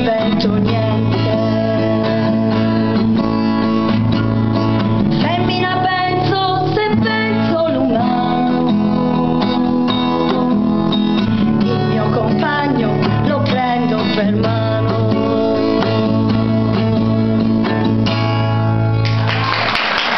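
A woman singing an Italian ballad to a strummed acoustic guitar through a microphone. The song ends about a second before the close, and applause breaks out.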